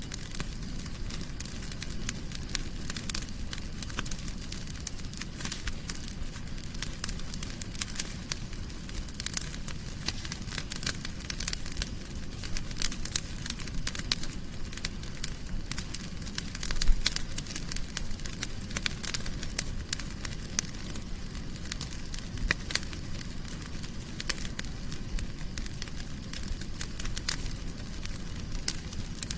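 Wood fire burning in a fireplace, crackling with dense, irregular pops and snaps over a low steady rumble, with one louder pop about 17 seconds in.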